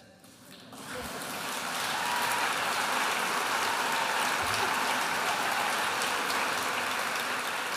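Audience applauding: the clapping starts about a second in, builds within another second and then holds steady.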